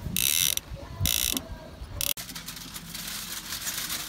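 A mechanical ratchet clicking in short runs of about half a second, roughly once a second. About two seconds in it gives way to a steadier crinkling hiss of aluminium foil being folded around a whole snapper.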